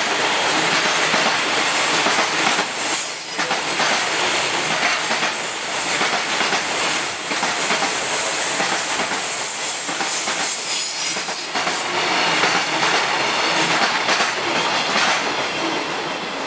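A freight train's container flat wagons rolling past: a steady rush of wheel and rail noise, with clacks as the wheels cross rail joints. It eases a little near the end as the last wagon clears.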